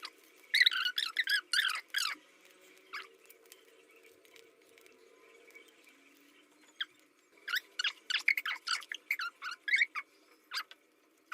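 Quick runs of short, wavering high-pitched squeaks in two bursts, one near the start and one from about two-thirds through.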